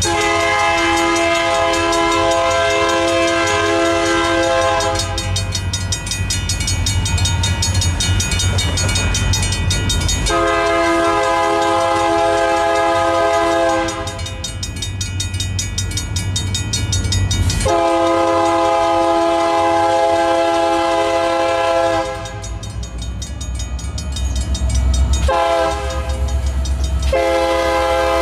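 Multi-chime air horn of an approaching freight train led by an EMD SD60 locomotive, sounding a series of long blasts and one short one near the end, the long-long-short-long grade-crossing signal, over the low rumble of the locomotives' diesel engines. A crossing bell rings steadily under it.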